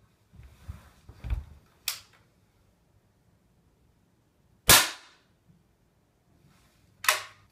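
A Daisy Powerline 880 multi-pump pneumatic air rifle, pumped ten times, fires a single sharp shot about five seconds in. Handling knocks and a click come before it, and another sharp click follows near the end.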